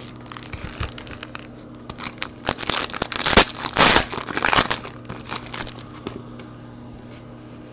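Foil wrapper of a 2018 Panini Contenders Draft Picks football card pack crinkling and being torn open by hand, a flurry of sharp crackles loudest between about three and five seconds in.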